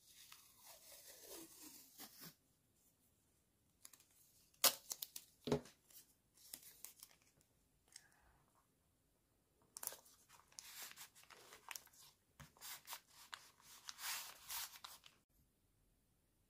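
Printed decorative tape being peeled off its roll and pressed onto a kraft-paper mailer, quietly: a peel with a falling whine in the first two seconds, two sharp taps about five seconds in, then a longer stretch of peeling and pressing toward the end.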